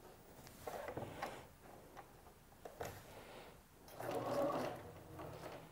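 Bernina sewing machine stitching in short bursts, tacking down the sides of a label; the longest and loudest burst comes about four seconds in.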